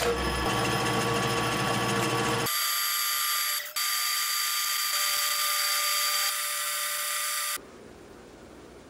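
Bench drill press running and drilling small holes through a metal spatula blank, a steady whine from the motor and the cutting bit. About two and a half seconds in the sound changes abruptly to a thinner, higher whine, and near the end it stops suddenly, leaving faint room tone.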